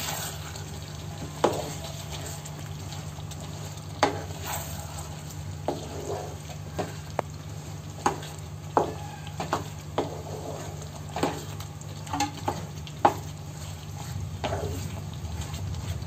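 A spatula scraping and knocking against a non-stick kadai while stirring a thick chicken curry, in about a dozen irregular strokes, over the gravy sizzling in the pan. A steady low hum runs underneath.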